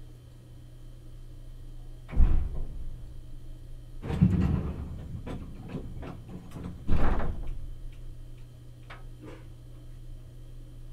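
Steady low hum inside a Meitetsu 1000 series car, broken by three loud knocks with clattering about two seconds apart; the middle one lasts about a second.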